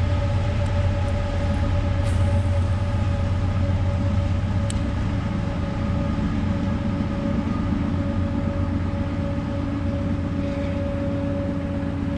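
Jet boat's engine running steadily: a constant low hum with several steady tones above it.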